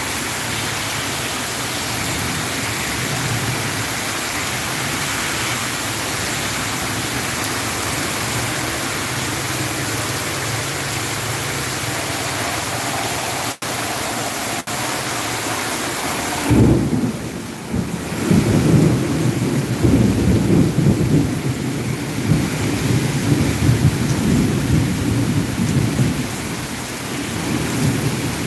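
Torrential rain pouring steadily on a street and pavement. A little past halfway a loud, low rumbling comes in and keeps surging and easing over the rain.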